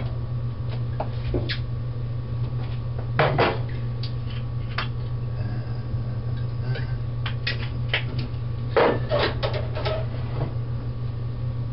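Utensil and dishware clatter as food is served from a skillet onto a plate: scattered clinks and knocks, busiest about three seconds in and again around nine to ten seconds, over a steady low hum.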